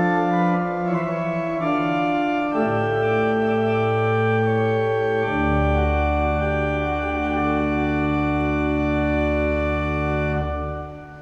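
Organ playing slow, sustained chords, with a deep bass note joining about halfway through. It ends on a held final chord that dies away near the end.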